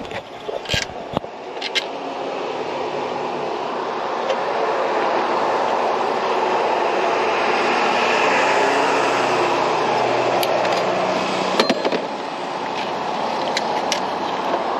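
A vehicle passing by: a steady rushing rumble that swells to its loudest about halfway through and eases off toward the end, with a few light clicks near the start and near the end.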